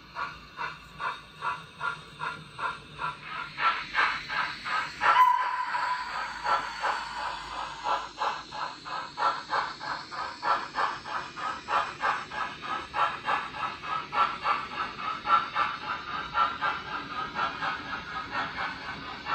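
Sound-fitted OO gauge model steam locomotive chuffing in a steady, even beat with a steam hiss, played from its DCC sound decoder. A brief steady tone, louder than the chuffs, sounds about five seconds in.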